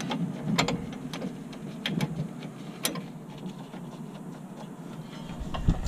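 A few scattered light metallic clicks and clinks from a hand tool on the 12 mm brake-line bracket bolt at the coilover strut, with low rumbling handling noise coming in near the end.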